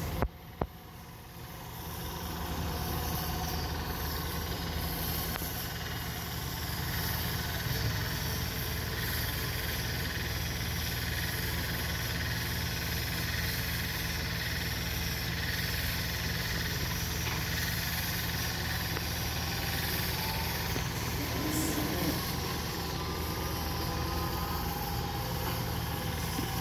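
Fendt tractor's diesel engine running steadily while it works its front-loader bale grab.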